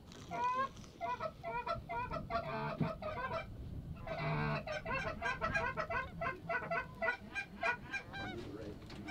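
Canada goose honks and clucks, short calls coming one after another, sparse at first and then many overlapping from about halfway through.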